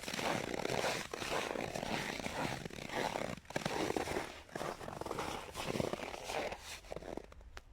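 Footsteps crunching and squeaking in dry, frozen snow in a steady walking rhythm.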